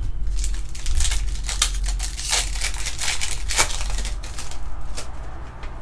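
A trading card pack's wrapper being torn open and crinkled, with a quick run of sharp rustles and clicks over a steady low hum.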